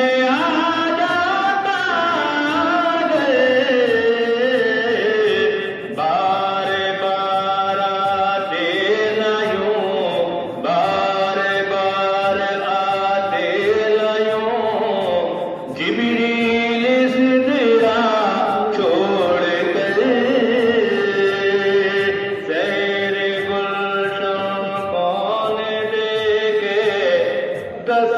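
A naat, an Urdu devotional song, sung in long flowing melodic phrases over a soft, steady beat.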